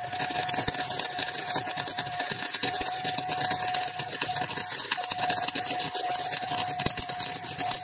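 Wire-feed MIG welder arc crackling steadily while seam-welding a strip of steel plate, with a steady thin whine running underneath.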